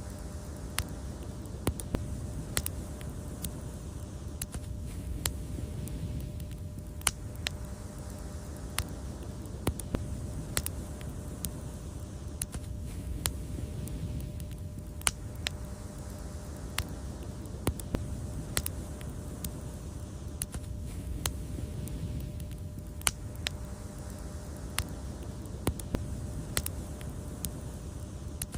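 Wood fire crackling: sharp, irregular pops, about one or two a second, over a steady low rumble of burning.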